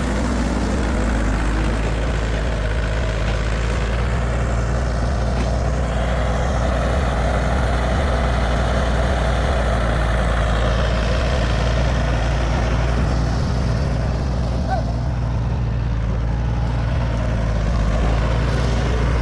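Tractor engine running steadily while pulling a loaded trailer.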